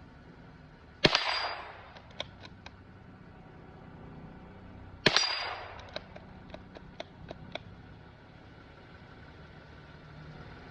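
Two shots from a Ruger Precision bolt-action .22 LR rifle, about four seconds apart, each a sharp crack with a short echo. Each is followed by light metallic clicks of the bolt being worked, a longer run of clicks after the second shot as that last round fails to extract.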